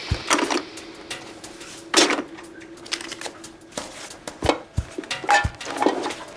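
Personal belongings being handled and packed into a bag on a desk: a string of irregular knocks, clicks and rustles.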